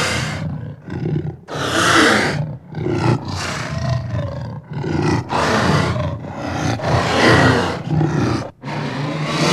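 Designed creature sound effects for a cyborg raptor: a run of about eight short roars in quick succession, shrill and metallic on top with a low rumble underneath, each broken off by a brief gap.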